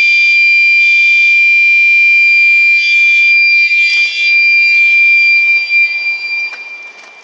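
Household fire alarm sounding on test: a loud, piercing steady tone with a second note pulsing about once a second. It cuts out near the end.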